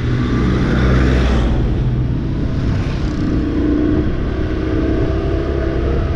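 Motorcycle engine running steadily while riding on a road, with road and wind noise over it.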